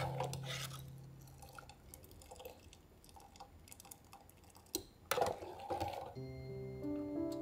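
Metal ladle stirring and lifting cooked dal in a stainless pressure-cooker pot: small clicks of the ladle against the pot and the thick lentils slopping back, loudest a little past the middle. Guitar music fades out in the first second, and new music begins near the end.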